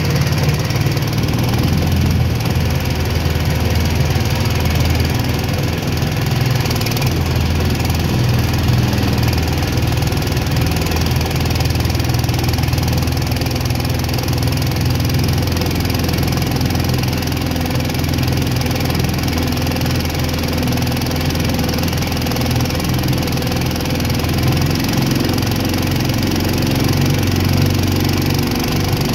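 Mudskipper long-tail mud motor with a 420cc single-cylinder four-stroke engine, running steadily under power, its pitch changing slightly near the end.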